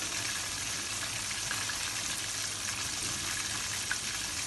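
Double-coated chicken wings deep-frying in hot oil, a steady sizzle with light crackles. This is their second fry, which crisps the skin.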